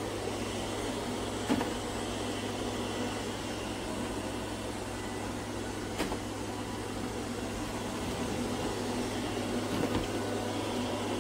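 Robot vacuum running: a steady motor and suction whir with a low hum, and a few light knocks about a second and a half in, around the middle and near the end.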